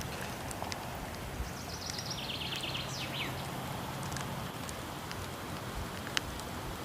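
Steady rush of falling water with scattered crackles and pops from a wood fire, one sharper pop near the end. About two seconds in, a bird sings a short, rapid, high trill that steps downward in pitch.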